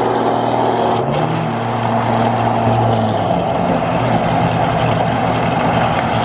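Chevy SS's 6.2-litre V8 with a stage 3 cam running under way, loud and steady, its pitch rising briefly about a second in.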